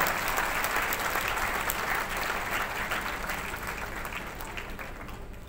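Audience applauding, a round of many hands clapping that gradually dies away.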